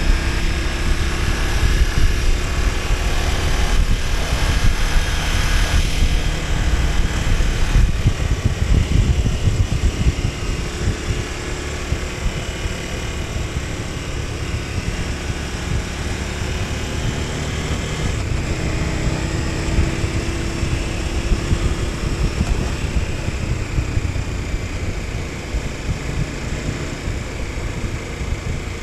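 KTM 1290 Super Adventure S's V-twin engine running under way, its pitch slowly rising and falling with the throttle, over a heavy rush of wind on the microphone.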